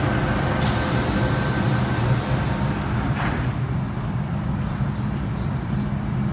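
MTR M-Train electric multiple unit standing at the platform while its doors close: a loud hiss starting just under a second in and lasting about two seconds, then a single knock about three seconds in as the doors shut, over the train's steady low hum.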